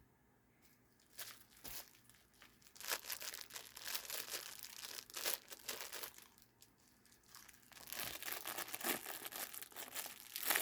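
Plastic packaging crinkling and tearing as it is handled, in two stretches: one starting about three seconds in, the other near the end.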